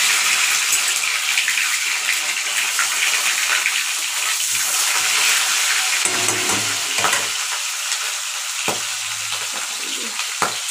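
A fish piece frying in hot oil in an aluminium kadai: a loud, steady sizzle, with a few sharp pops of spattering oil near the end.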